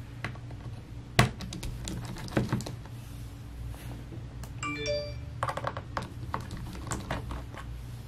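Small metallic clicks and taps of a precision screwdriver and tiny screws on a MacBook Air's aluminium bottom case as the case screws are taken out, with a short bright metallic ring at several pitches about halfway through.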